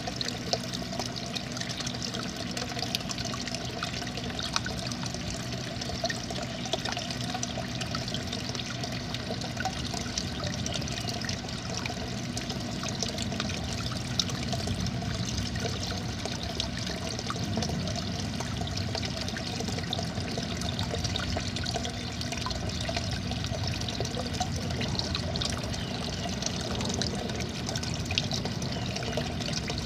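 A small garden-pond waterfall pouring steadily into the pond: a continuous splashing trickle.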